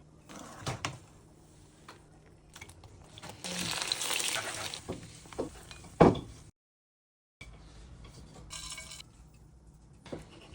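Kitchen cooking sounds in short clips: utensils clinking against dishes and pots, a couple of seconds of hissing near the middle, and a sharp knock about six seconds in.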